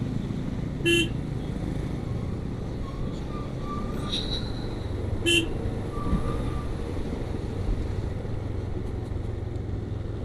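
Motorcycle running along at road speed, its engine a steady low rumble under wind and road noise. A vehicle horn gives a short toot about a second in and again about five seconds in.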